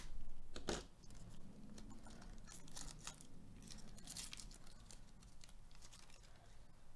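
A Panini Mosaic baseball card pack being torn open, loudest in the first second, then its plastic wrapper crinkling and the cards rustling as they are slid out.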